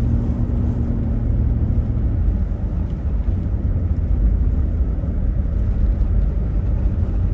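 Steady low rumble of a car driving, heard from inside the cabin, with a faint steady hum in the first second or so.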